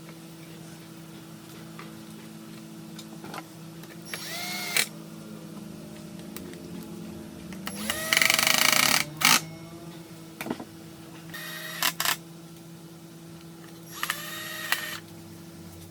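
A small electric power tool hums steadily, with four louder, harsh bursts of working noise, the longest about a second and a half near the middle.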